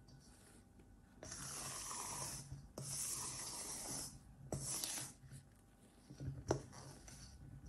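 A silicone spatula and a plastic bowl scraper scraping and folding thick chocolate macaron batter against a stainless steel bowl in about three long strokes, pressing the meringue and almond-cocoa flour together during macaronage. A sharp tap on the bowl near the end.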